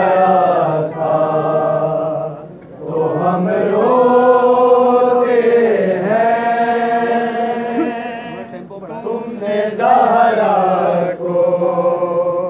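Men chanting a noha, an Urdu mourning lament, in long drawn-out sung phrases with short pauses for breath between them.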